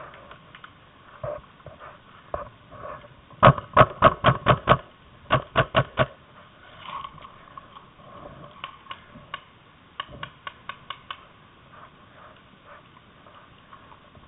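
Paintball markers firing in quick volleys of four to six shots, about five shots a second. The loudest volleys come a few seconds in, and fainter ones follow later.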